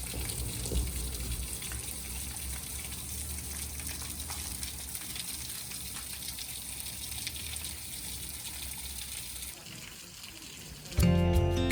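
Water running in a steady gush, with faint ticks, until it drops away about nine and a half seconds in. Acoustic guitar music begins near the end.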